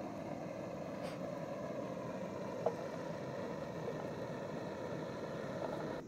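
Portable gas camping stove burner running with a steady rushing noise, with one short tap about two and a half seconds in.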